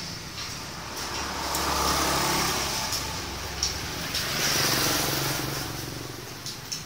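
Motor traffic passing by, a low engine and tyre hum that swells and fades twice, with a few faint clicks.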